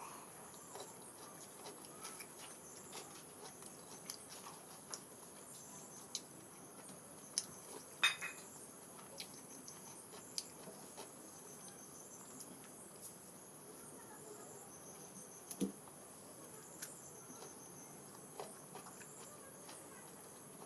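Crickets chirring steadily in the background, with scattered light clicks and smacks of someone eating from a plate; the sharpest click comes about eight seconds in.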